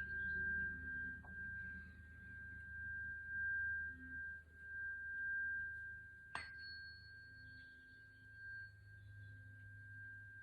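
Tibetan singing bowl sounding the note C, a steady, sustained ringing tone that swells and fades slightly, with one sharp click about six seconds in.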